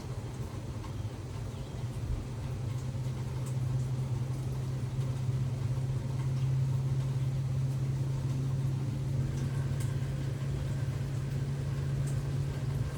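A steady low hum, like an idling engine or motor, runs under a faint even hiss, with a few faint ticks.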